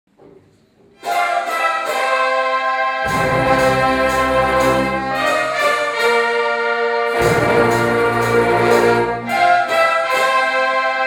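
Orchestral music with brass, mainly trumpets and trombones, starting about a second in, with heavy low notes joining at about three seconds and again at about seven.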